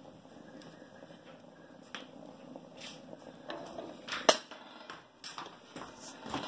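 Steel rocket stove being handled: a few light metallic clicks and knocks, then a sharp metal clank about four seconds in as a hand works the spring-handled loading door, over a faint steady hiss.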